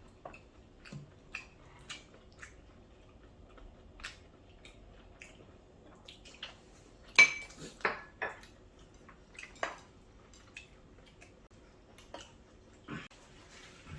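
Spoons clinking and scraping against bowls and plates of curry rice: scattered light clicks, with the loudest clink about seven seconds in and a few more close after it.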